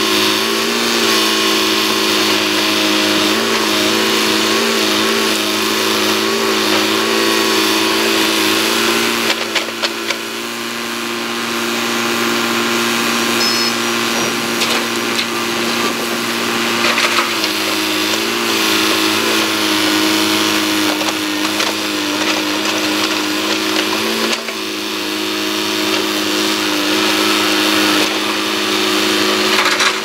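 Caterpillar 318B hydraulic excavator's diesel engine running steadily under working load, its pitch wavering as the hydraulics swing the boom and bucket to load a dump truck. A few sharp knocks come around ten seconds in and another near the end.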